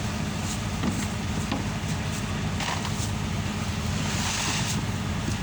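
Boat engine running steadily with an even low drone. Two brief rushing, hissing noises come through, one a little after halfway and a longer one near the end.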